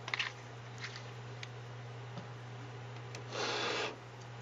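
Faint clicks at the lecture computer as the slide is changed, then a brief rubbing rustle about three and a half seconds in, the loudest sound here, over a steady low hum.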